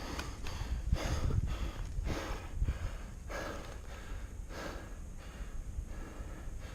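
A person breathing hard, a run of loud breaths about a second apart, close to the microphone.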